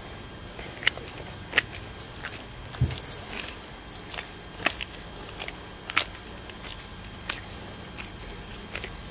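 Gloved hands handling and turning a glue-coated rocket propellant grain: scattered small clicks and sticky ticks, with a soft low thump about three seconds in followed by a brief hiss.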